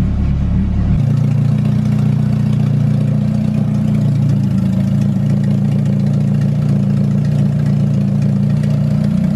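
Honda H-series DOHC VTEC four-cylinder engine idling steadily at about 1,100 rpm on temporary headers, freshly built and just brought to life.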